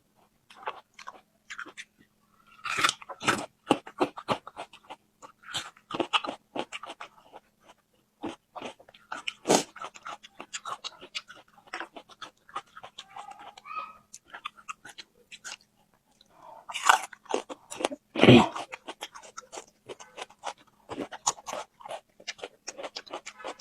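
Close-up eating sounds: a person biting and chewing crunchy food in an irregular stream of crackles, with a few louder crunching bites, the loudest two close together about three quarters of the way through.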